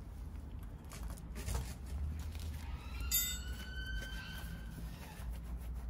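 An exhaust mounting spring is pulled onto its hook and snaps into place with a sharp click about three seconds in, and the coil spring rings briefly afterwards. A lighter metal click comes a second or so earlier.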